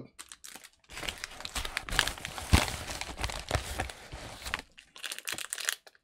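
Clear plastic packaging bag crinkling and rustling as it is handled, with small clicks among the crackle. The crinkling is busy from about a second in until past four seconds, then thins to a few scattered crackles.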